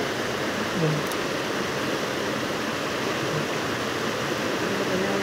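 Shallow, fast river rushing over rocks: a steady rush of white water.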